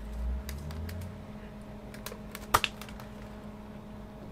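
Handling sounds of a Riddell SpeedFlex football helmet being turned in the hands: a low rustle at first, then a few light clicks and taps, with one sharper click about two and a half seconds in. A steady faint hum runs underneath.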